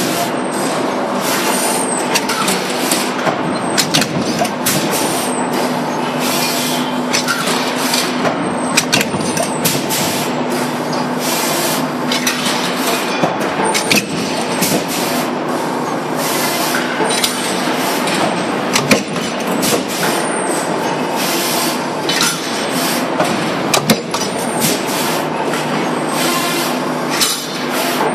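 Automatic steel sheet part feeder and punch press running in a cycle: a steady machine hum with short hisses and metallic clacks repeating every second or so as the gantry arm moves sheets in and out of the press.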